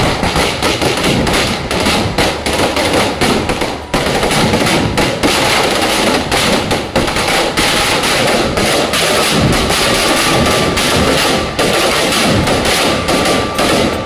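A long string of firecrackers going off, cracking rapidly and without pause, with a brief dip about four seconds in.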